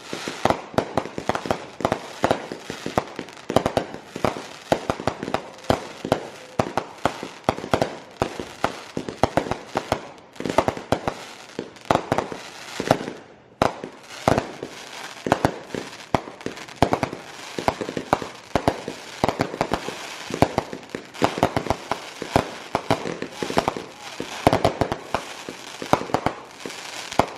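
Fireworks going off in rapid, irregular succession, a dense run of sharp bangs and crackling pops.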